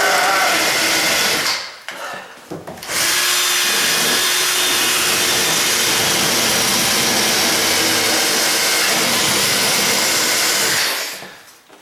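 Dremel rotary tool running on high with a grinding-stone bit, grinding at a door strike plate. It stops briefly about a second and a half in, starts again about a second later, and winds down near the end.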